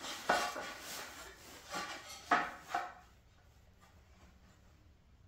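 A metal speed square knocked and slid against a pine board while pencil lines are drawn along it: a few sharp clacks with scraping between them, over about three seconds.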